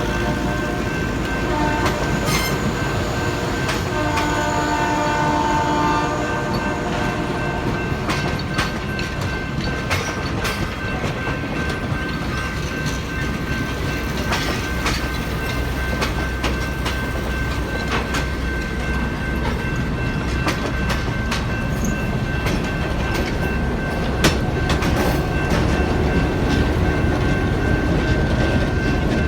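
Train led by an EMD GP9 diesel locomotive sounding its horn: one blast ends about a second in and another runs from about 4 to 6 seconds in. After that comes the steady rumble of the moving train, with wheels clicking over rail joints.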